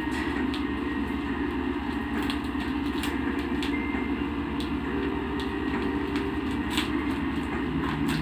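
A steady low hum with a few faint clicks and taps scattered through it.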